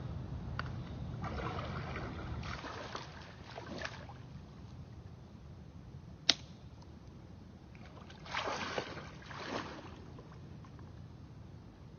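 Water sloshing and splashing in two stretches, about a second in and again near eight seconds in, with a single sharp click about six seconds in.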